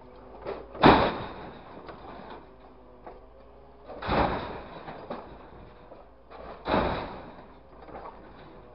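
Grapple crane loading scrap wood and debris into a steel truck bed: three loud crashes about three seconds apart as the load drops and the claw strikes the pile, with a faint steady hum between them.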